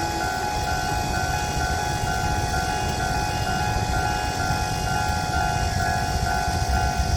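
Level-crossing warning alarm sounding in a steady, regularly repeating electronic tone, which is this crossing's special warning sound. Under it runs the low rumble of a diesel-hauled train on the crossing.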